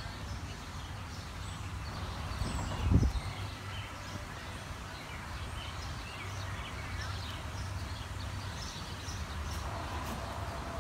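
Outdoor background sound: a low steady hum with faint, scattered bird chirps, and one dull thump about three seconds in.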